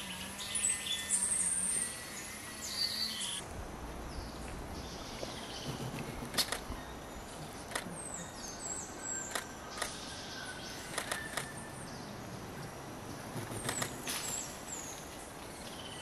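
Wild birds calling: short, high chirps and whistles, some falling in pitch, scattered through, with a few sharp clicks.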